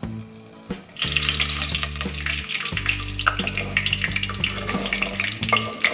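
Gram-flour pakoras deep-frying in hot oil in a clay pot, stirred with a wooden spatula: a dense crackling sizzle that starts about a second in.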